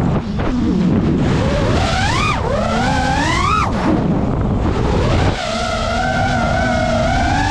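GEPRC Mark 5 5-inch FPV quadcopter's brushless motors whining, the pitch sweeping up and down with the throttle. It rises twice in the first few seconds, drops suddenly, then holds a steadier, higher whine from about halfway. A low rush of wind and prop wash runs underneath.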